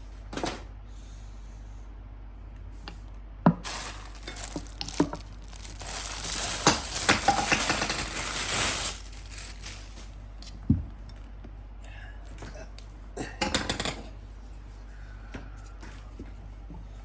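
Handling noises as an angle grinder and its accessories are unpacked: sharp clicks, knocks and clinks of hard parts being picked up and set down, with a few seconds of denser rustling and scraping from about four to nine seconds in.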